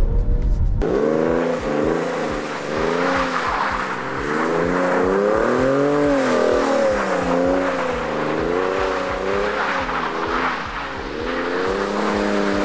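Porsche 996 Carrera 2's flat-six engine, breathing through a BMC panel filter, IPD intake plenum and 'Gundo hack' exhaust, revving up and down over and over as the car slides and spins its rear tyres on snow, with a hiss of tyres and thrown snow under it.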